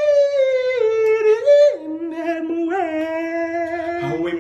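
A voice singing long wordless held notes: a high wavering note that slides down to a lower held note about two seconds in. Other music comes in near the end.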